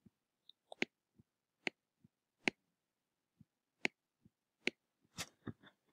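A string of faint, sharp clicks, one roughly every half second to second. They come from a stylus tapping and pressing on a tablet screen while writing by hand.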